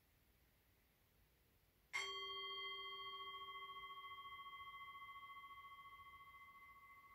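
Singing bowl struck once about two seconds in, ringing with a few clear tones that waver and slowly fade. The strike marks the start of the gong bath session.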